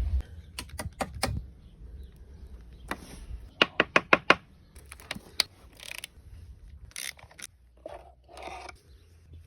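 Metal parts and hand tools clicking and scraping on an automatic transmission being dismantled, with a quick run of about six sharp clicks around four seconds in.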